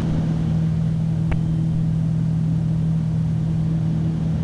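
Twin piston engines and propellers of a Piper Navajo Panther droning steadily in cruise climb, heard from the cockpit as an even hum, with a faint click about a second in.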